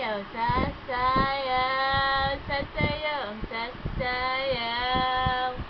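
A high-pitched voice singing two long, steady 'aah' notes, one about a second in and another about four seconds in, with short vocal sounds between them.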